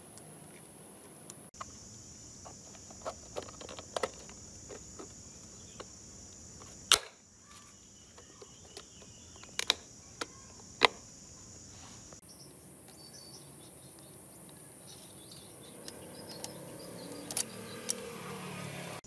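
Sharp plastic and metal clicks and knocks, about half a dozen spread through, as the air filter housing and its linkage are pressed and fitted onto a small OHV four-stroke generator engine. A steady high insect drone runs behind.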